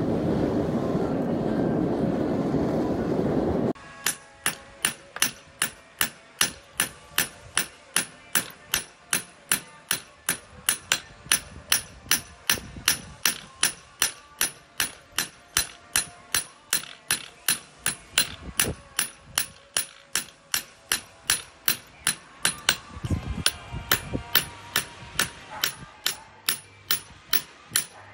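A steady rushing roar from the open forge, cut off suddenly about four seconds in. Then a hand hammer strikes a red-hot knife blade held on a steel anvil, in a steady rhythm of about three blows a second, each blow ringing briefly.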